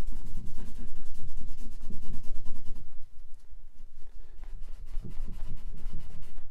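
Cloth rag buffing excess wax putty-stick filler off a wooden chair leg, in quick back-and-forth rubbing strokes. The strokes are firmer for the first half, then lighter.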